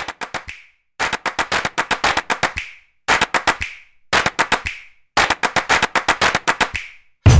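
Background music made of quick, sharp clap-like percussion hits, about eight a second, in phrases of one to two seconds broken by short gaps of silence. A fuller track with a heavy bass beat comes in just before the end.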